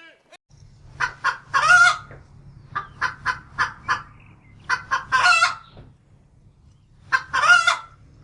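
A rooster crowing three times, each crow a multi-note call about a second long, with a run of short chicken clucks between the first two crows.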